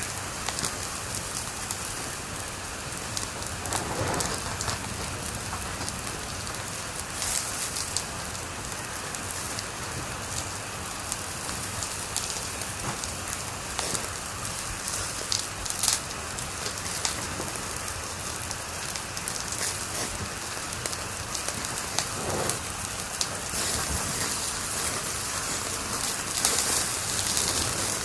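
Wood fire in a fireplace crackling: a steady hiss with frequent small pops and snaps, and a louder pop about halfway through.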